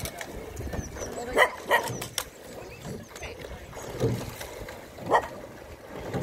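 A dog barking: two quick barks about a second and a half in, and another near the end.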